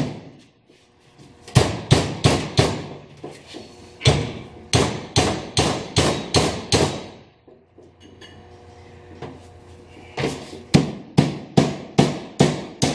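Hammer striking a steel punch to drive the outer oil seal out of a Toyota Land Cruiser front differential housing: three runs of sharp metal-on-metal blows, about three a second, with short pauses between runs. The seal is stuck fast and takes many blows to shift.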